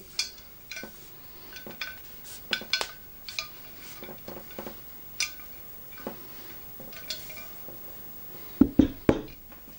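Light metallic clinks and taps as the Ergotron LX monitor arm's pole, steel base plate and bolt are handled and turned over, with a few louder knocks near the end as the pole comes down onto the desk.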